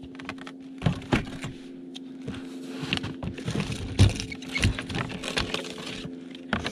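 Hollow plastic knocks and clunks as a plastic jerry can is packed into a plastic tote and the tote's lid is handled, several separate knocks over a few seconds. A steady low hum runs underneath.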